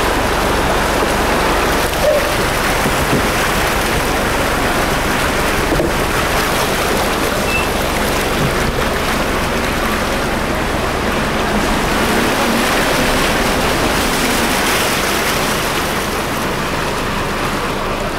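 Floodwater rushing across a road: a steady noise of flowing water, easing slightly near the end.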